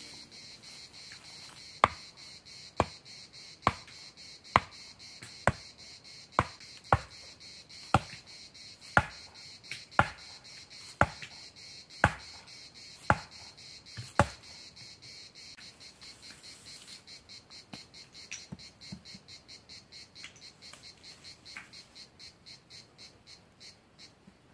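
Axe blows knocking a wooden stake into the ground: about fourteen sharp, evenly paced strikes, roughly one a second, then a few lighter knocks. Insects keep up a steady high pulsing drone behind them.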